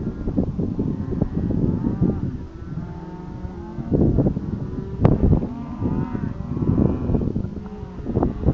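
Cattle mooing, several drawn-out calls overlapping from different animals, over a heavy gusting rumble of wind on the microphone.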